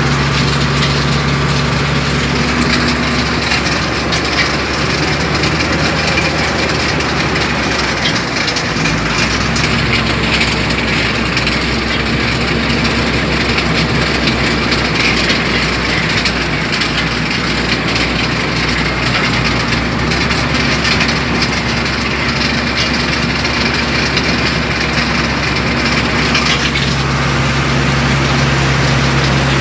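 Engine of peat-harvesting machinery running steadily under a dense, noisy mechanical clatter. Its note changes a couple of seconds in and changes back near the end.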